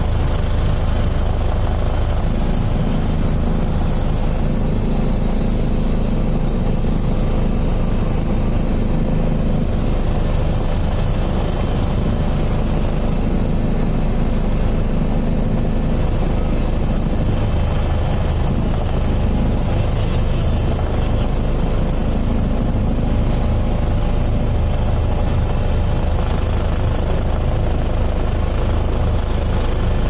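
Helicopter engine and rotor running steadily, a constant low drone heard from aboard the aircraft.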